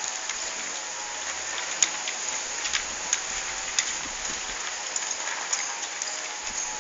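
Dog eating dry kibble from a metal bowl: irregular crunching and sharp clicks of food against the bowl.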